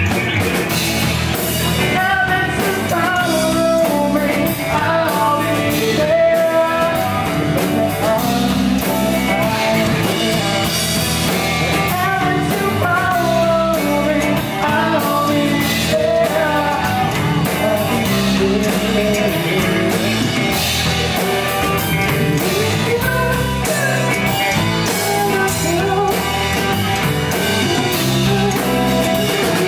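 Live rock band playing loudly: electric guitars, bass guitar and drum kit, with a singer's voice over them.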